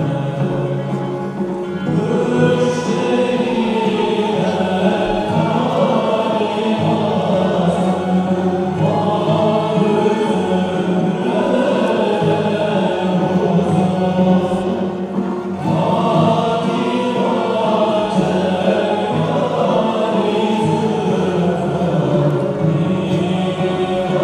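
Sufi devotional music of a Mevlevi whirling ceremony: a choir singing a chant over instrumental accompaniment.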